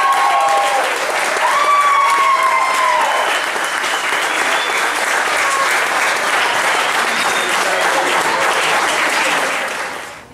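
Audience applauding, with voices whooping and calling out over the clapping in the first three seconds; the applause dies away near the end.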